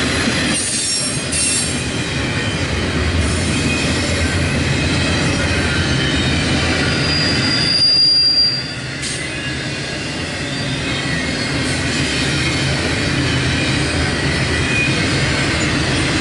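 Double-stack container well cars of a CSX intermodal freight train rolling past with a steady rumble and wheel noise. A brief high-pitched wheel squeal comes about seven to eight seconds in.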